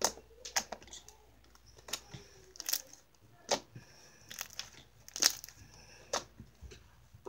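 Purple glitter slime being pressed and folded by hand, giving off irregular short, sharp pops and clicks, about a dozen, with faint crackling between them.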